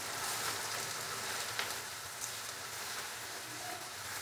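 Chopped onions, tomatoes and green chillies sizzling steadily in hot oil in a kadhai as they are stirred, with a couple of faint scrapes of the stirring utensil against the pan.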